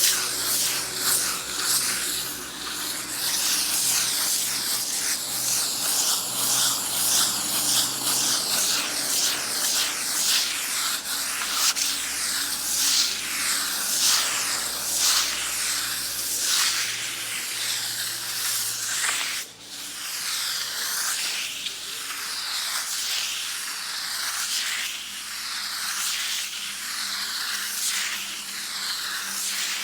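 Sandpaper rubbed back and forth against a wall in quick, repeated scratchy strokes, with a brief break about two-thirds of the way through.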